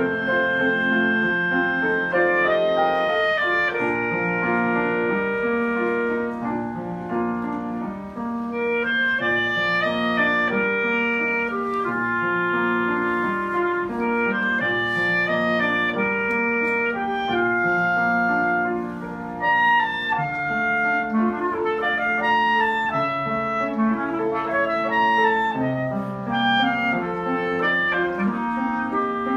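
Clarinet and upright piano playing a classical duet, the clarinet carrying a melody of held notes over piano chords.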